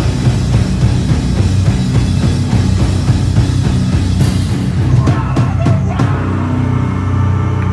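Live rock band playing loud, with a full drum kit pounding under distorted guitar and bass. About five seconds in the drumming thins out and held, ringing notes carry on, as at the close of the song.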